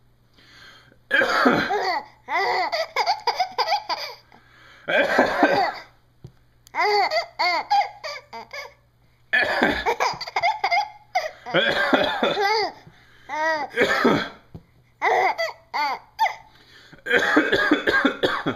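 A man's fake coughing alternating with a small child's giggling laughter, back and forth several times.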